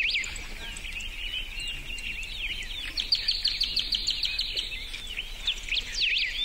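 Many small birds chirping and twittering at once, with a fast run of repeated chirps about three seconds in.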